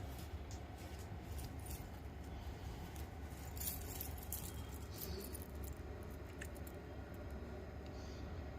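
Light clicks and rattles of small hard parts being handled, coming in scattered runs and thickest a few seconds in, over a steady low hum.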